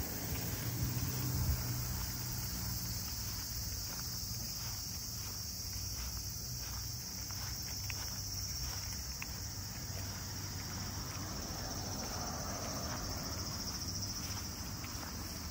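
A steady, high-pitched chorus of insects, with soft footsteps on grass underneath.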